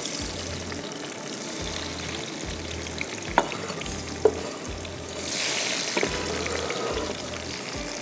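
Chopped tomatoes sizzling as they fry in hot oil with cumin seeds, stirred in the pan, with a few sharp clinks of the spoon against it. The sizzle swells about five seconds in.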